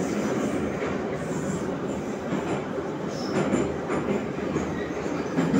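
Metro train running between stations, heard from inside the car: a steady rumble and rush of wheels on the rails, with a few brief clacks.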